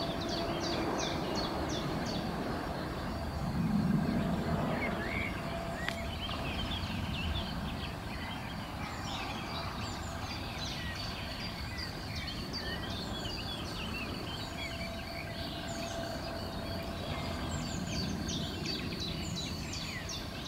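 Small birds chirping and singing in quick, short notes over a steady outdoor background hiss, with a brief low rumble about four seconds in.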